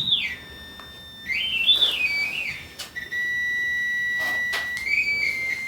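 REM pod sounding its alert, an electronic tone that steps down, climbs and wavers, then holds one steady pitch for about two seconds before rising slightly near the end. The pod is going off over and over.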